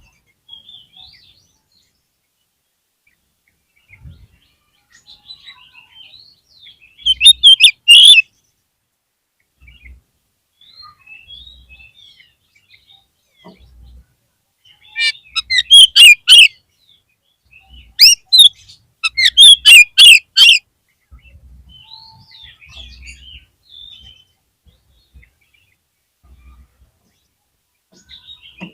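Oriental magpie-robin (kacer) song: quiet, varied chirps and whistles, broken three times by loud bursts of rapid, harsh notes, about a quarter of the way in and twice more past the middle.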